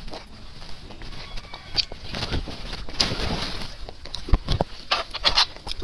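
Close-up wet eating sounds: sucking and slurping soft marrow from spicy sauce-coated bone sections, with lip smacks and small clicks. There are louder slurps near the end.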